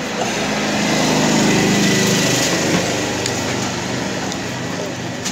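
A small engine running, growing louder to a peak about two seconds in and then slowly fading.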